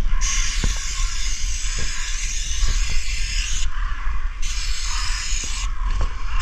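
Aerosol spray-paint can hissing as white paint is sprayed onto rusty metal. It goes in three sprays: a long one, a short break about three and a half seconds in, a second spray, another short break, then spraying again near the end. Underneath is a low rumble.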